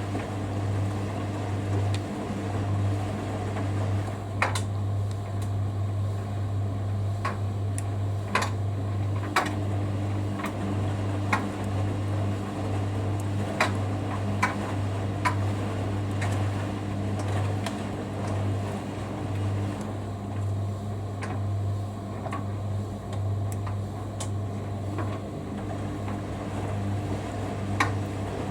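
Hoover Dynamic Next washing machine's drain pump running with a steady low hum as the drum empties after the rinse, ahead of the final spin. Scattered light clicks and taps sound over the hum.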